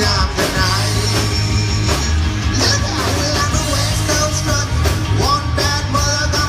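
Live rock band playing loud at a sound check: drums, bass and electric guitar, with a singer's voice over them. The bass and low end come in heavily just under half a second in.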